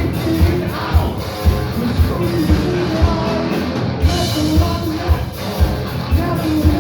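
Heavy metal band playing live: a steady drum beat about twice a second under a dense band sound, with a sung vocal line.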